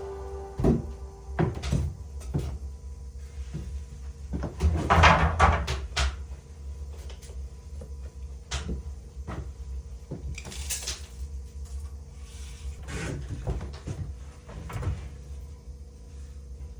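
Carpentry work with wood: scattered knocks and clunks of boards being handled, with a longer clattering, scraping stretch about five seconds in and another near eleven seconds, over a steady low rumble.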